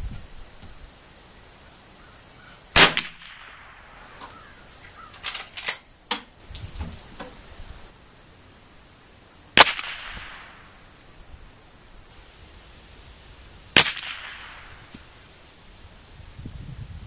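Three single shots from a Winchester 94/22 lever-action .22 rifle firing .22 LR match ammunition, several seconds apart, each with a short echo off the range. Between the first two shots there are a few sharp metallic clicks as the lever is cycled. A steady high insect trill runs underneath.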